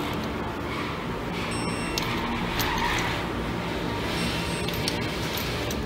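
Background music with steady sustained tones and a few faint clicks.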